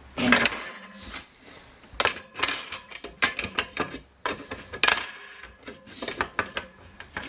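Metal wire rack clattering and scraping against a metal frying pan as it is pushed in and shifted around to test the fit: a run of irregular sharp metallic clicks and knocks, with louder knocks about two seconds and about five seconds in.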